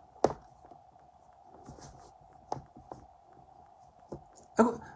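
A handful of short clicks and taps over a faint steady hum, with a brief vocal sound near the end.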